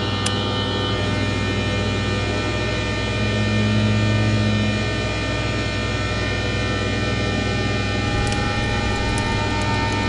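Electronic drone music: a dense cluster of held tones, with a low hum swelling up about three to five seconds in and a few faint ticks near the end.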